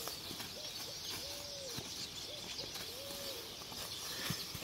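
A dove cooing in a repeating phrase: one long arched coo followed by two short notes, about every one and a half seconds, over a steady high hiss.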